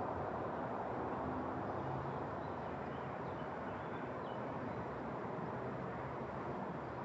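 Steady outdoor background rumble, with a few faint high chirps, like distant birds, between about three and four and a half seconds in.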